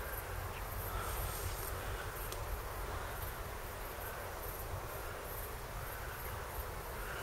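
Steady outdoor background noise with a low rumble, and faint, repeated high-pitched insect chirping.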